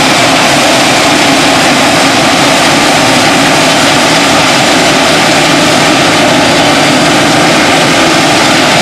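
Claas Lexion 480 combine harvester running steadily while harvesting rice: a loud, even machine drone with no change in pitch or load.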